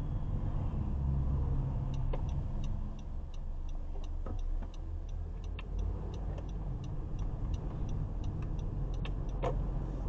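Low steady road and engine noise inside a moving car's cabin, with a turn signal ticking evenly, about three clicks a second, from about two seconds in until near the end.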